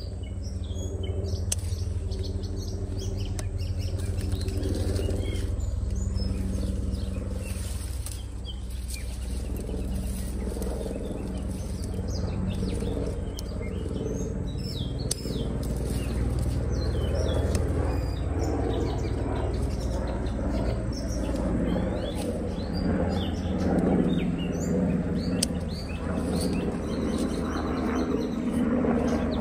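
Bean vines and leaves rustling as string bean pods are gathered and snipped off with scissors, with birds chirping and a steady low hum underneath.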